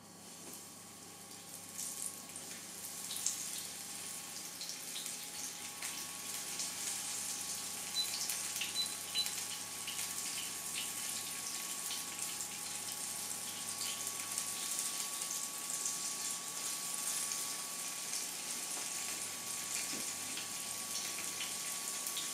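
Floured pieces of wild boar meat sizzling in hot lard in a frying pan, with many small crackles. It grows louder over the first several seconds as more pieces are laid in, then holds steady.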